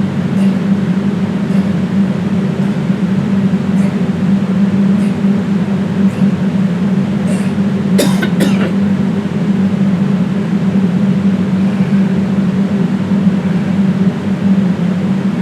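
A loud, steady mechanical hum, like a motor or fan, with faint ticks about once a second and a sharper double click about halfway through.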